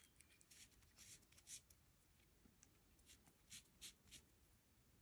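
Faint rustling of a thin braided cord sliding through a monkey fist knot as its strands are pulled tight one by one: a few short swishes in two small clusters.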